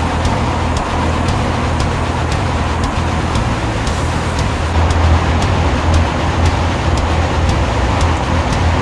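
Steady rush of fast river water, with a strong low rumble under it.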